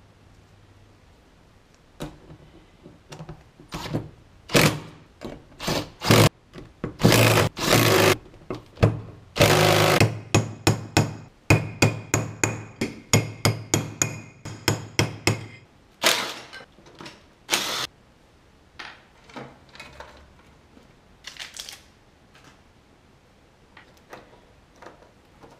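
Wrench and steel parts clanking and knocking as the nuts holding a Honda Cub's rear sprocket to the wheel hub are fitted and tightened. In the middle comes a run of quick metallic clicks, about three a second, with a faint ring, and the knocks thin out to a few lighter ones near the end.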